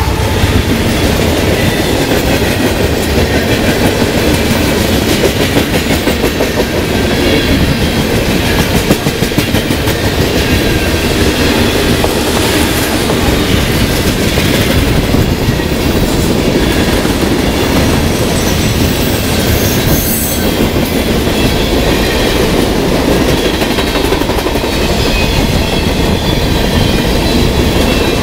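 Freight train cars rolling past close by, a steady rumble of steel wheels on rail with a continual clickety-clack over the rail joints.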